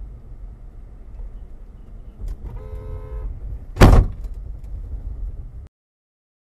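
Car's engine and road rumble heard from inside the cabin; a car horn sounds for under a second, then a loud short bang, the loudest sound, just as a dump truck comes right up against the car's left side. The sound cuts off shortly before the end.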